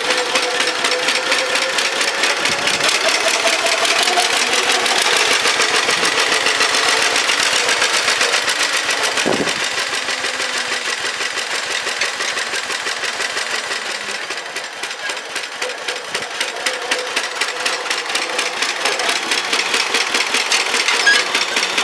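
John Deere 50's two-cylinder engine running with a steady, even putt-putt as the tractor drives. It grows quieter in the middle as the tractor moves away and louder again near the end as it comes back.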